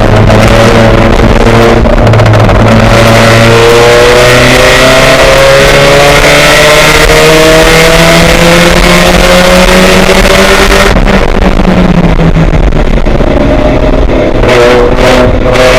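Race car engine at full throttle, its pitch rising steadily for about ten seconds, then the revs drop sharply and begin climbing again near the end.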